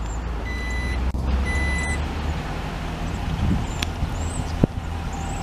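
2012 Jeep Grand Cherokee's power liftgate closing: its warning chime beeps about once a second over the low hum of the liftgate motor for the first two seconds, and the gate latches shut with a single sharp click near the end.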